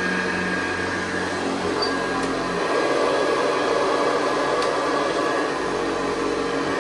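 1964 Hoover Convertible Model 584 upright vacuum cleaner running steadily, a continuous motor whine and rush of air that grows slightly louder about three seconds in.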